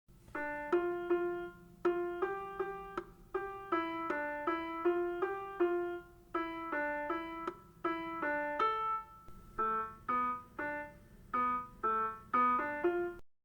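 Piano-toned keyboard playing a melody of separate, struck notes over chords, about two notes a second, without singing.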